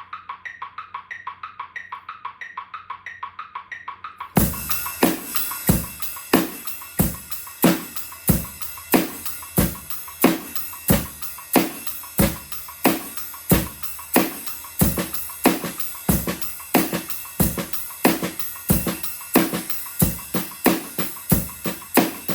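A metronome clicking a steady tempo for about four seconds, then a drum kit comes in with a rock groove: ride cymbal in eighth notes, kick drum, and snare accents on 2 and 4 with quieter ghost notes on the snare between them.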